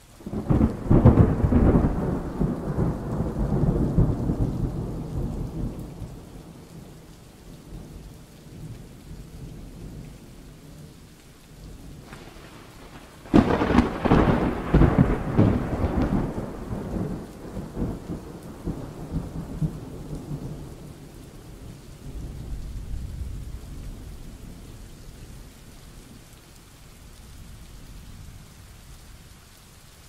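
Thunder rolling over steady rain. A long rumble starts right at the beginning and dies away over about five seconds; a second clap breaks suddenly about thirteen seconds in and rumbles off, and a lower rumble swells again a little past twenty seconds.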